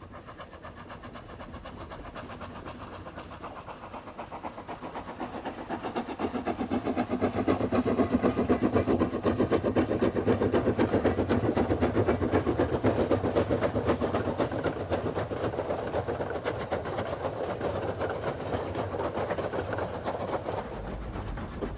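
3 ft gauge steam tank locomotive chuffing in rapid, regular exhaust beats as it hauls a train past. The beats grow louder over the first third, are loudest in the middle, then slowly fade as the engine draws away.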